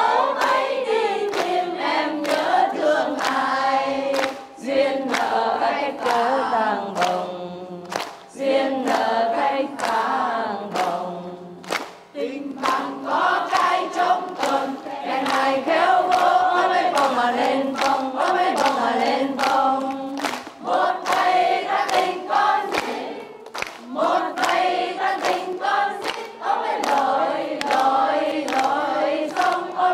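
A large crowd singing a song together, with hands clapping steadily on the beat.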